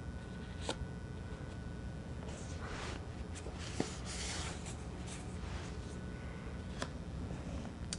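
Paper picture cards and patterned paper swatches being handled and laid down on a cloth mat: soft rustling around the middle and a few light taps, over a steady low room hum.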